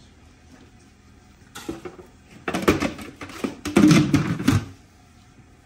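A cluster of sharp clattering knocks, as of hard objects being handled and set down, coming in rapid succession from about two and a half to four and a half seconds in, with a heavier thud-like part near the end.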